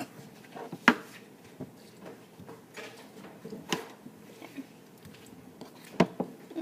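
Kitchen handling noise: a few sharp knocks and clicks, as of utensils and dishes being moved, the loudest about a second in and again near the end.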